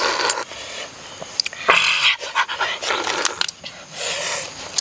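Crab being eaten noisily: meat and juices slurped and sucked from the shell in several loud breathy pulls, with a few sharp clicks of shell between.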